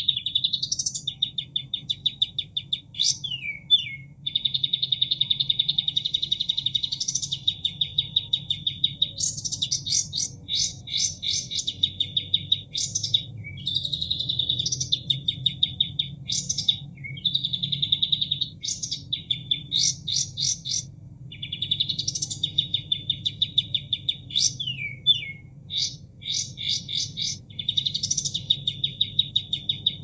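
Recorded kapas tembak bird song played as a masteran training track. Long, fast-pulsed buzzy notes alternate with clusters of sharp chips and quick sweeping whistles, repeating every few seconds. A faint low rush of water runs underneath.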